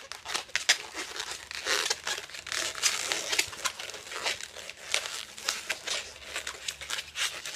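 Inflated latex 260 balloon being worked by hand and twisted into a row of 1-inch bubbles: a dense, irregular run of rubbing, crinkly rustles and small scrapes.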